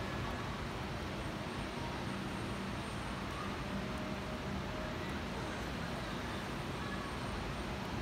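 Steady hiss of rain falling over a city, mixed with the low hum of distant road traffic; a faint engine tone rises out of it for a couple of seconds around the middle.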